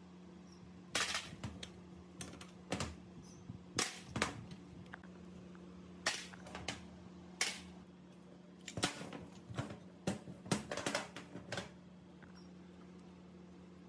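Irregular sharp taps, clicks and knocks from hand work on metal parts, some coming in quick clusters, over a steady low hum.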